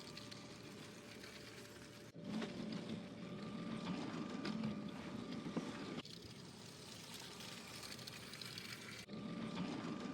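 A LEGO train's small electric motor running, with its wheels rattling along the plastic track, heard from on board the train. It steps abruptly louder about two seconds in, drops back about six seconds in, and rises again near the end.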